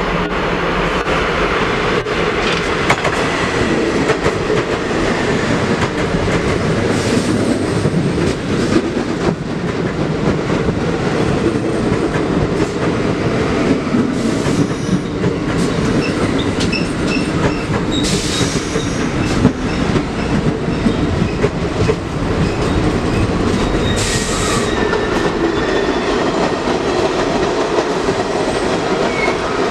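A train running past close by, its wheels clacking steadily over the rail joints, with a few brief high wheel squeals in the middle and later part.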